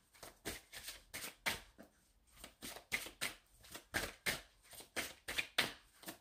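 A deck of cartomancy cards being shuffled by hand: a run of short, crisp card slaps about three a second, with a brief pause about two seconds in.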